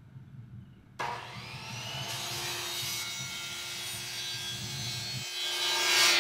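DeWalt compound miter saw with an 80-tooth blade starting about a second in, its motor whine rising as it spins up and then running steadily. Near the end the blade cuts through 2-inch PVC pipe, the loudest part.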